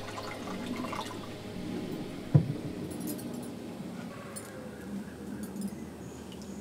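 Water pouring and splashing from a terracotta jug into a clay pot. About two and a half seconds in there is a single dull knock, the loudest sound. After it come light scattered clicks as a wooden spoon stirs in the clay pot.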